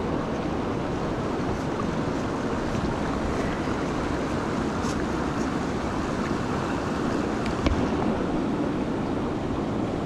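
River water rushing steadily, with a few faint clicks on top.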